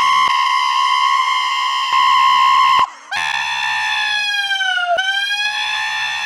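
A man's high-pitched, strained wail while lifting: one long held note, a brief break about three seconds in, then a second slightly lower note that sags and rises again near the end.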